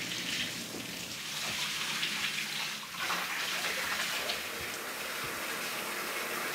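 Bathtub tap running, a steady stream of water splashing into an empty tub.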